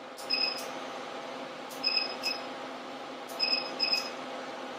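Soprano ICE diode hair-removal laser firing single pulses, giving three pairs of short high beeps with clicks about a second and a half apart, over a steady hum.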